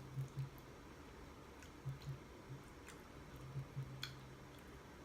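Close-miked chewing of chicken linguini: faint, wet mouth sounds that come and go, with a couple of soft clicks.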